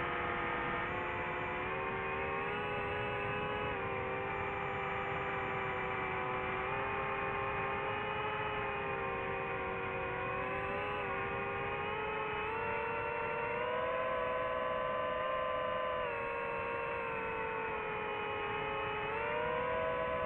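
DJI FPV quadcopter's motors and propellers whining steadily in flight, the pitch shifting up and down with throttle a few times and climbing again near the end.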